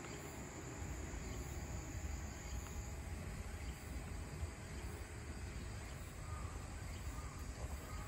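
Faint outdoor ambience: a steady low rumble with a thin, high, steady insect buzz that stops about three seconds in.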